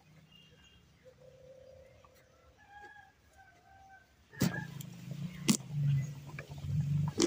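Large knife striking and splitting a whole pumpkin, with several sharp knocks starting about four seconds in. Faint bird calls are heard before the knocks.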